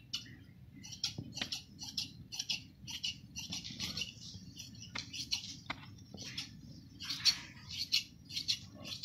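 Fabric scissors cutting through folded striped pajama cloth: a steady run of crisp snips, about two to three a second.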